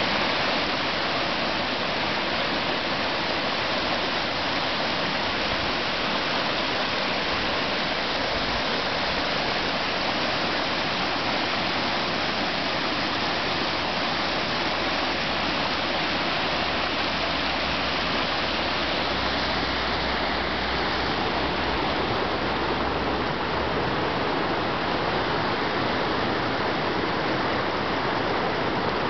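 Steady rush of river water pouring over a low-dam spillway and churning white in the hydraulic jump just below it.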